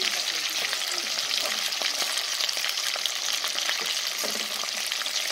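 Pork pieces (Haitian griyo) deep-frying in hot oil in an aluminium pan: a steady sizzling hiss with scattered small pops, stirred with a metal utensil. The meat is being left to fry until well golden.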